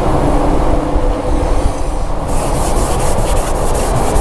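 A towel rubbed back and forth over a boat's fiberglass gel coat close to the microphone, the scratchy strokes starting about halfway through, over a steady low rumble.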